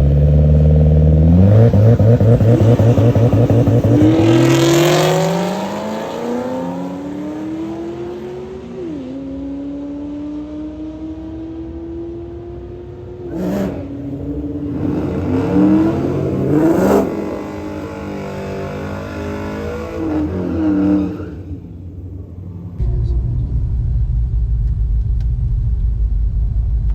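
Drag-racing car accelerating hard, its engine pitch climbing and dropping back at each gear change as it pulls away. Near the end a steady low engine rumble sets in.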